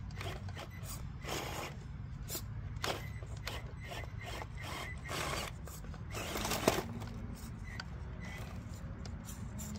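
Traxxas TRX-4M 1/18 mini crawler working over rocks: scattered clicks and short scrapes of tyres and chassis on stone over a low steady hum, with one sharp knock about two-thirds of the way in.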